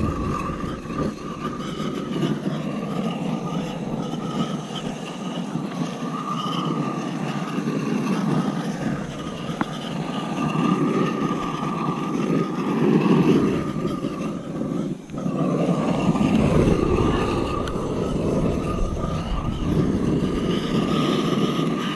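Hot-water pressure washer running with a steady drone and a steady high whine, the spray hissing louder in surges as it is played over the hive parts. It dips for a moment about fifteen seconds in.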